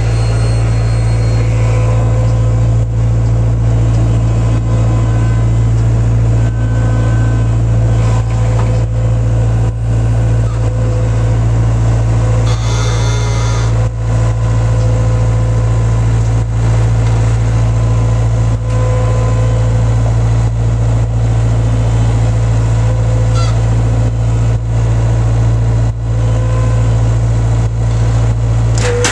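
Skid-steer loader engine running steadily under work, heard from inside the cab, with a short hiss near the middle.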